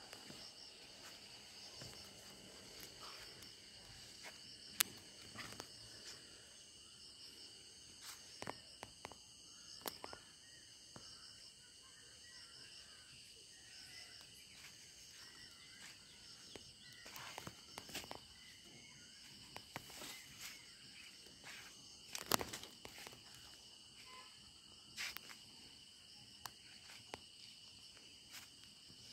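Faint, steady high-pitched chirring of insects, with scattered footsteps and knocks on the soil now and then.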